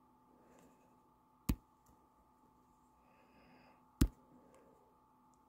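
Two sharp computer-mouse clicks, about two and a half seconds apart, over a faint steady electrical hum.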